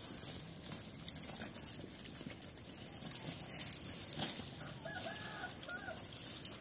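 Pigs rooting and chewing among dry banana leaves, with scattered crackles and rustles. A rooster crows faintly about five seconds in.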